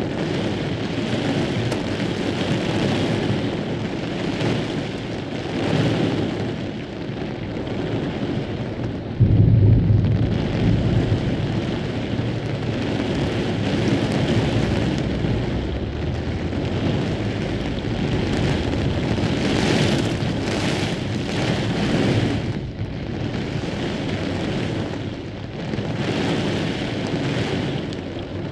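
Heavy rain and wind throughout. A little over nine seconds in, a sudden loud, low thunder clap breaks in as the loudest moment, then rumbles away over several seconds.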